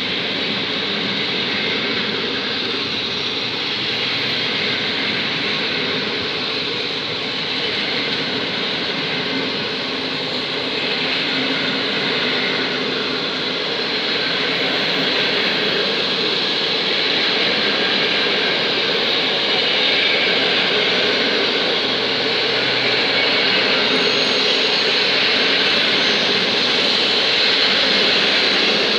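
PKP Intercity passenger coaches rolling past: a steady noise of wheels on rails that grows slightly louder toward the end.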